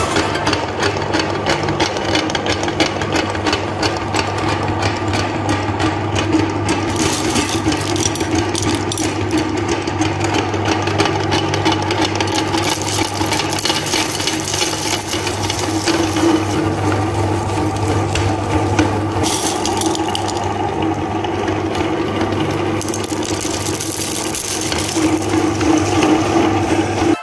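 Electric meat grinder running steadily, its motor humming while the auger crushes colourful sugar-shelled chocolate candies, with a constant crunching rattle that grows a little louder near the end.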